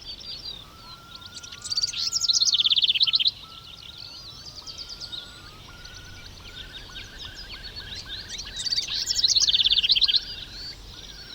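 Songbirds singing: two loud, fast trilled song phrases, one about two seconds in and one near the end, over quieter whistles and repeated notes from other birds.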